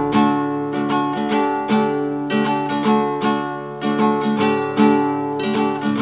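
Acoustic guitar music for the series' title sequence, a tune of quick, evenly spaced plucked and strummed notes.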